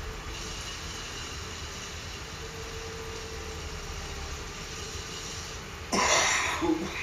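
A man coughs loudly once, near the end, after inhaling a dab of cannabis concentrate. Before the cough there is only steady background noise.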